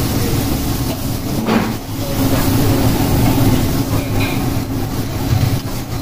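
Diced bell peppers and mushrooms sizzling in butter and garlic in a hot pan, over a loud steady low rumble, with a few short knocks.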